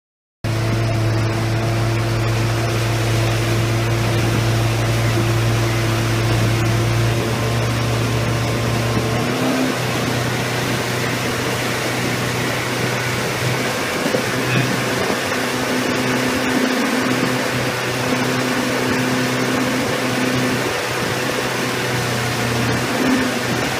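Boat engine running steadily under way, with rushing water and wind noise. It starts suddenly about half a second in, and its hum shifts in pitch about nine seconds in.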